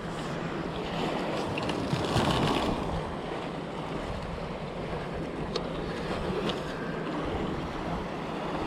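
Sea surf washing on a rocky shore, with wind on the microphone: a steady rushing that swells briefly about two seconds in.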